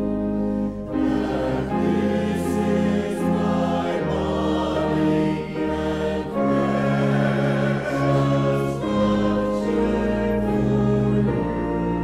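Mixed church choir of men and women singing a hymn in parts, with instrumental accompaniment underneath; the held chords change every second or two.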